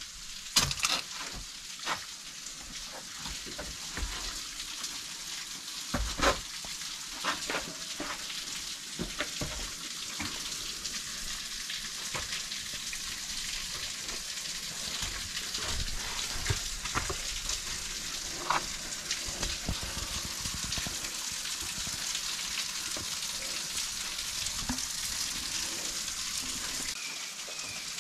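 Steady hiss of a creek's running water, with scattered clicks and knocks through the first two-thirds. A faint run of short high chirps comes in near the end.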